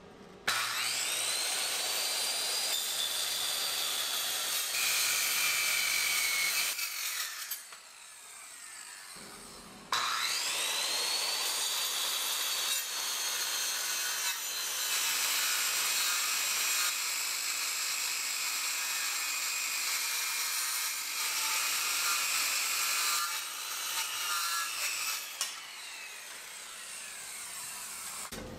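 13-amp circular saw with a 7-1/4-inch Diablo Steel Demon 48-tooth cermet carbide blade cutting steel plate. Twice the motor spins up with a rising whine, runs through the cut with a steady high-pitched noise, then winds down; the second cut runs longer.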